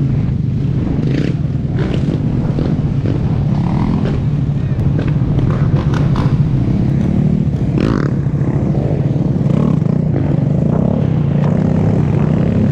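Motorcycle engine running steadily, a continuous drone whose pitch shifts a little now and then.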